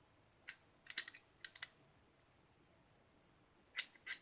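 Small metal parts of a Norinco NP34 pistol clicking as the trigger bar and trigger are worked out of the frame: a few light clicks in the first couple of seconds, then two more near the end.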